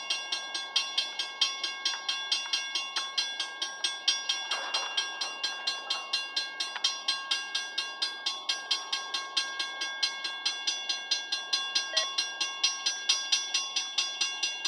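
Railroad grade-crossing bell ringing steadily at about three strikes a second, the warning that the crossing signals are active for an approaching train.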